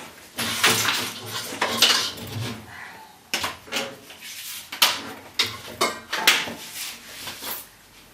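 Small hard plastic items clicking and knocking as they are handled and set down: a 3D printing pen and its USB cable and power adapter being handled. There is a run of clicks with rustling in the first couple of seconds, then single sharp knocks every second or so.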